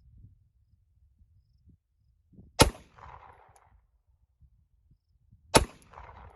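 Two shots from a 9mm Glock 34 pistol, about three seconds apart, each trailing off in a brief echo.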